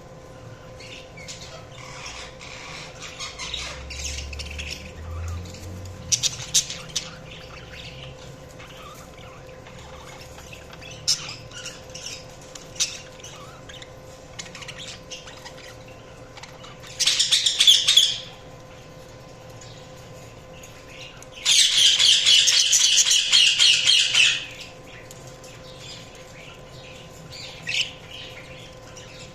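Budgerigars chirping, with scattered short calls and two loud bursts of rapid chatter, one about a second long past the middle and a longer one of about three seconds soon after. A faint steady hum runs underneath.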